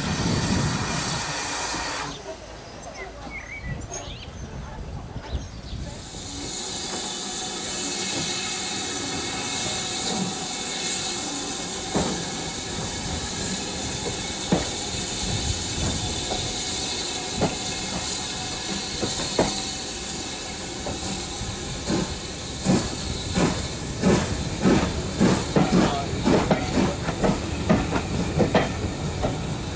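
Steam-hauled passenger train moving along beside a platform: a steady hiss of steam, with the coaches' wheels clicking over the rail joints, first now and then and then in a quick clickety-clack near the end.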